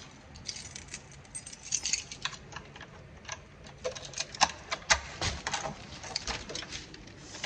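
A bunch of keys jangling, a run of irregular light clicks, with a few louder ones about four to five seconds in.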